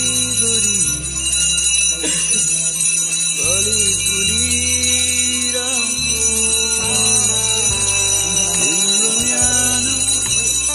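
Bells ringing continuously with music at a temple: a wavering melody over a low note that holds and shifts every second or two.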